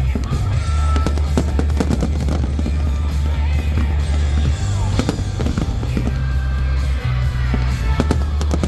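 Fireworks going off in rapid succession, many sharp bangs and crackles, over music with a deep, sustained bass line.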